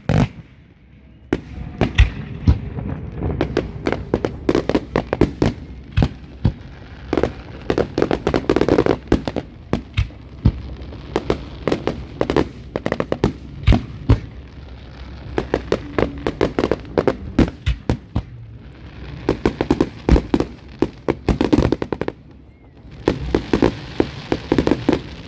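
A fireworks display: aerial shells bursting in a long run of sharp bangs, with dense stretches of rapid popping several times.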